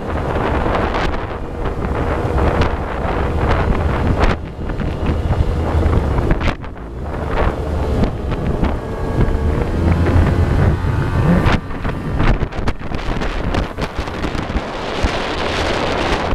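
Heavy wind buffeting the microphone over the running engine and rushing water of a boat at speed, the noise gusting with brief dips throughout.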